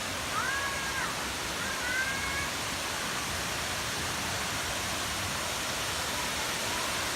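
Khlong Lan waterfall: a steady rush of falling water. Two short, high calls sound over it in the first couple of seconds.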